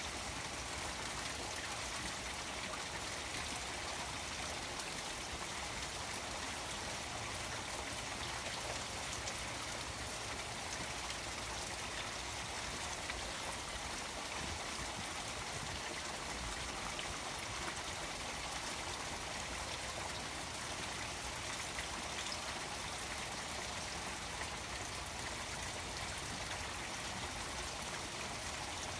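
Rain falling steadily on a koi pond water garden, with the pond's small waterfall running in a steady splash and scattered drops ticking on the surfaces.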